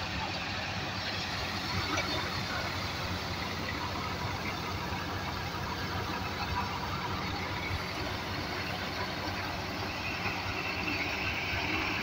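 Tractor-powered pearl millet thresher running steadily: a constant engine drone with the machine's noise over it.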